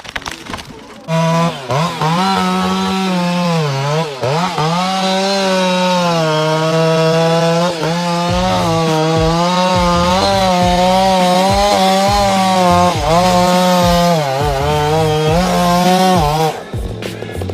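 Chainsaw cutting pine wood, its engine running at a high steady note that dips and recovers several times as it bogs under load in the cut. It stops near the end.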